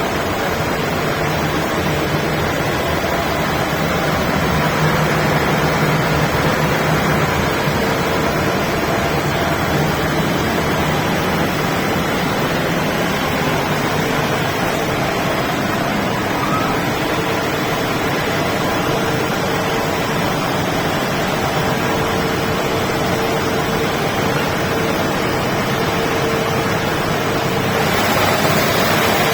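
SCM Sandya 600 wide-belt calibrating sander running: a steady loud rushing noise with a faint even hum underneath, growing slightly louder near the end.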